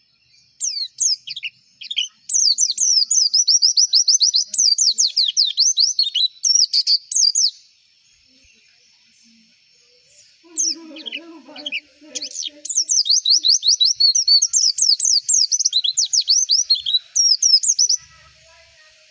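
White-eye (pleci) singing in two long bouts of fast, high, downward-sliding notes, with a pause of a few seconds between them.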